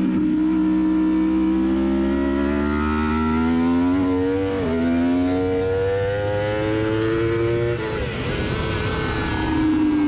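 Yamaha R1 inline-four engine accelerating hard, its note climbing through the revs with one quick upshift about halfway. Near the end the throttle shuts, the note breaks into noise and the revs fall away.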